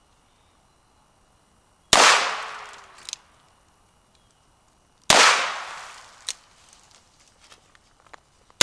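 Rock Island Armory M200 revolver firing .38 Special rounds: two shots about three seconds apart, each trailing off in a long echo with a fainter crack about a second later, and a third shot right at the end.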